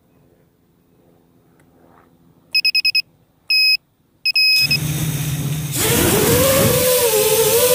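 A 5-inch FPV quadcopter beeps: four quick high beeps, then a longer one and a short one. Its motors then spin up to a steady low idle hum, and near the end the throttle comes up into a louder propeller whine that rises and wavers in pitch.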